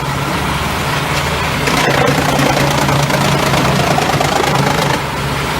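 Large mobile wood chipper running: a steady diesel engine drone under a dense, even grinding noise from the chipping.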